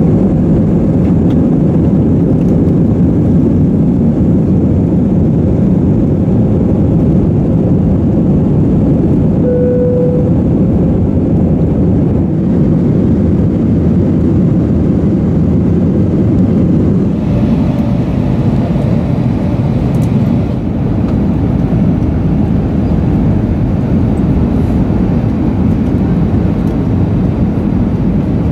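Steady low roar of jet engines and rushing air heard inside an airliner cabin, with a brief short beep about ten seconds in.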